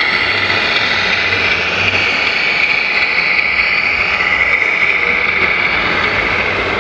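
Steady high-pitched whine of a radio-controlled model machine's small electric motor and gearbox running continuously.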